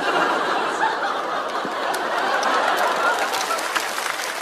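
Studio audience laughing at a punchline, with scattered clapping joining in over the second half.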